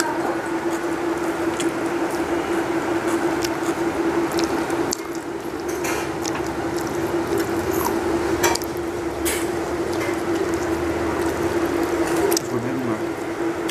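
Eating by hand from a steel plate: soft wet squishing of rice and curry being mixed and picked up with the fingers, chewing, and a few sharp clicks, over a steady hum.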